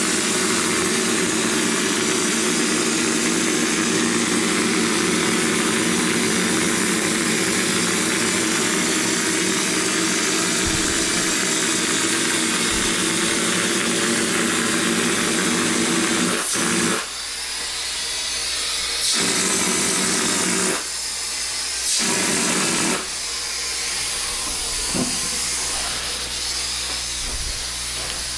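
Drywall texture hopper gun spraying knockdown mud with compressed air: a steady hiss over the hum of a running air compressor. About 17 seconds in the hum stops, and the hiss goes on in short bursts as the gun is triggered on and off.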